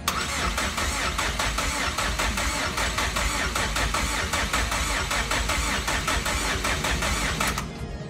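Starter motor cranking the freshly rebuilt Mazdaspeed 3's 2.3-litre turbo four-cylinder engine in an even rhythmic chug without it firing, to prime the oil system and build oil pressure. It stops abruptly about seven and a half seconds in.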